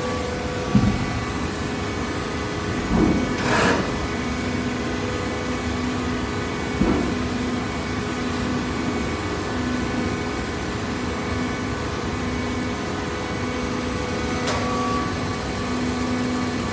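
Horizontal cardboard baler and its infeed conveyor running: a steady machine hum with a faintly pulsing tone, a few dull thumps about a second in and around three to four seconds in, and a sharper knock near the end.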